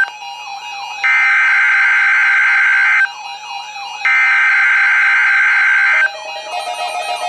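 NOAA Weather Radio SAME header: two long bursts of harsh, screeching digital data tones, each about two seconds, about a second apart, encoding the Emergency Alert System message for a Required Weekly Test.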